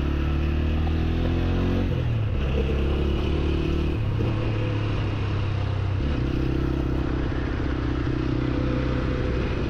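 TVS Apache 160 4V's single-cylinder engine running as the motorcycle rides along, with wind and road noise. Its note shifts in pitch in steps about two, four and six seconds in.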